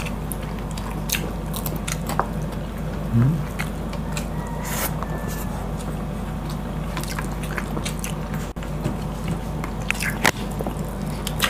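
Close-miked mouth sounds of eating soft braised pork hock: chewing and wet smacking with scattered small clicks, over a steady low hum. A brief hum of the voice about three seconds in.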